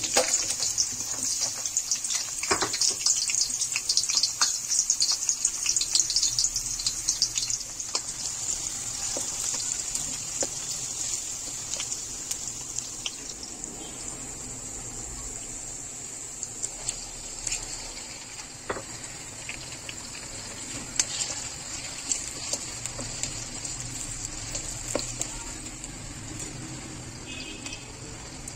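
Sliced onions sizzling and crackling in hot cooking oil. The crackling is densest and loudest right after they go in, then eases into a steadier, quieter sizzle.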